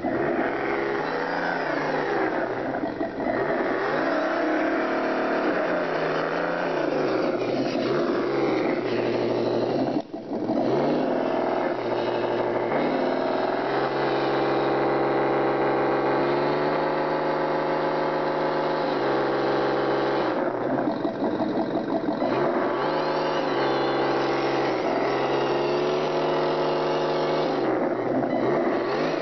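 Radio-controlled scale Toyota FJ45 crawler truck driving, its drive note rising and falling in pitch with the throttle. It holds steady for several seconds in the middle and cuts out briefly about ten seconds in.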